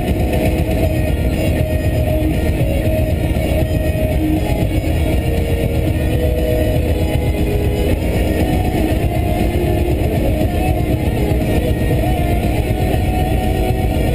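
Steady engine and road noise inside the cabin of a turbocharged Subaru Forester XT cruising at highway speed, with no revving or gear changes.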